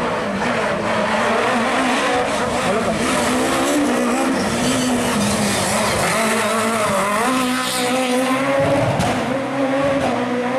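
Rally car engine revving hard, its pitch rising and falling through gear changes as it drives a bend, with tyre squeal.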